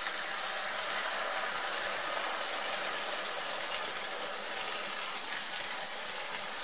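Ground beef and tomato sizzling steadily in a hot frying pan as dry white wine is poured in.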